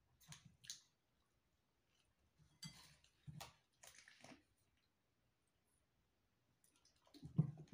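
Faint, scattered sounds of eating and drinking: chewing a mouthful of noodles, then handling and drinking from a plastic water bottle. The loudest sounds come near the end.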